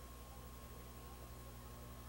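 Near silence: a faint steady low hum and hiss, with no distinct sound.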